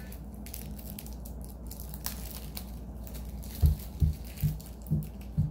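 Faint crinkling and tearing of a chocolate-bar wrapper over a steady low room hum, then, about two-thirds of the way in, a run of soft low thuds about two a second.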